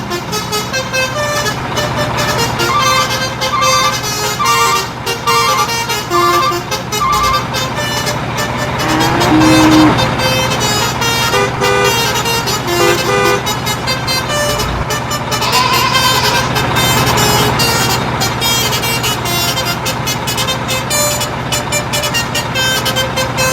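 Upbeat background music with a melody of short notes over a steady motor-like hum, with sliding pitch sound effects twice.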